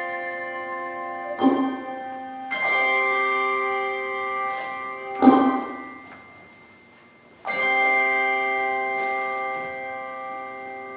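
A handbell choir playing slow chords, each struck chord left to ring and die away, with two sharper, louder strikes and a brief near-quiet gap before the last chord.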